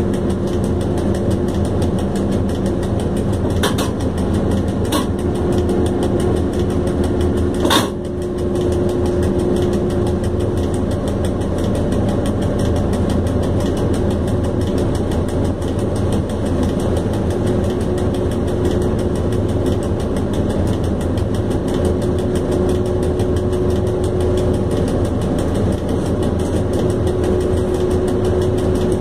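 Steady low running rumble inside the cab of a PKP ET22 electric freight locomotive under way, with a faint hum that comes and goes. A few sharp clicks cut through about four and five seconds in, and a louder one near eight seconds.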